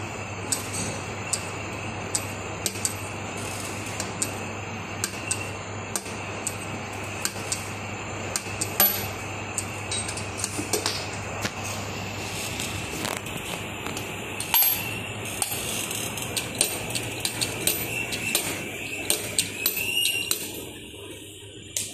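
An engine valve spinning and wobbling on its freshly machined seat in a cylinder head, with irregular light metallic clicks and clinks over a steady hum.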